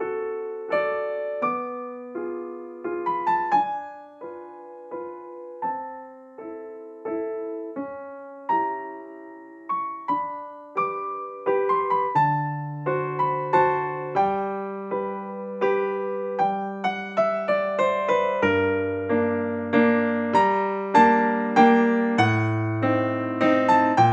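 Background solo piano music: a slow, gentle melody of single struck notes that each fade away. Lower bass notes join about halfway through.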